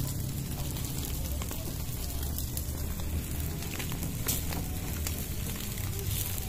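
Campfire crackling with scattered sharp pops as fish grill over it, above a steady low rumble.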